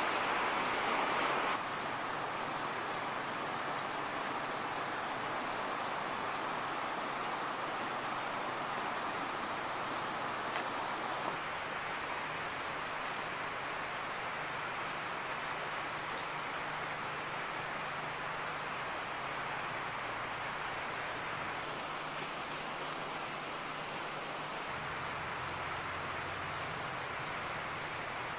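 Insects calling in one steady high-pitched tone that comes in about a second and a half in and holds unbroken, over a soft even hiss of forest background.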